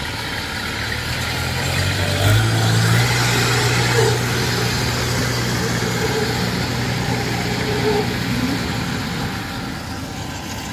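Engine of a tracked rice-field carrier cart running steadily as it crawls past over the harvested stubble. The low hum grows louder about two seconds in and fades near the end as the cart moves off.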